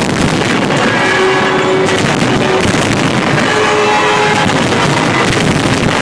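A dense barrage of fireworks, with many bangs and crackles following close on one another, over music with long held notes.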